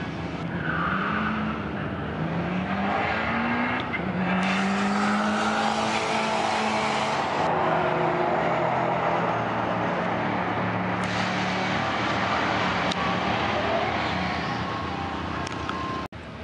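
1990 Eagle Talon TSI AWD's turbocharged four-cylinder engine at full throttle on a drag-strip pass. Its pitch climbs through each gear and drops back at every shift.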